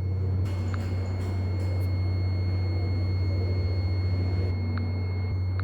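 Steady low hum with a thin, steady high-pitched whine above it and a faint tick or two.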